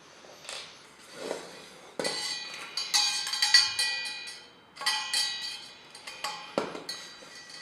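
Background music with bell-like percussion: struck notes ring on twice, about two seconds in and again about five seconds in, among lighter knocks.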